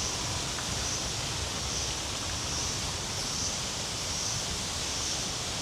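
Steady rush of running spring water, with a faint high buzz pulsing about once a second above it.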